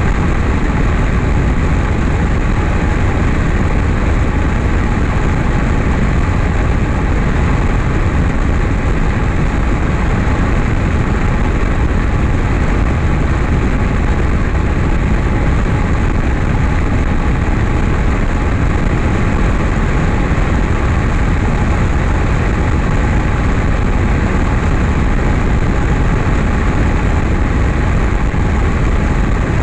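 Single-engine high-wing light airplane in flight, heard from a camera mounted outside the airframe: a steady engine and propeller drone mixed with heavy wind rush, holding constant without any change in power.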